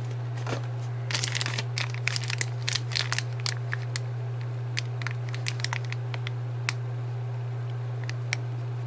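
Plastic and cardboard packaging of a miniatures booster pack crinkling and crackling as it is handled. The crackles come thick for a few seconds from about a second in, then thin out to scattered clicks, over a steady low hum.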